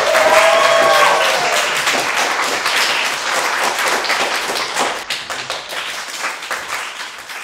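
A small audience applauding at the end of a reading, with a short voice call near the start. The clapping slowly dies away toward the end.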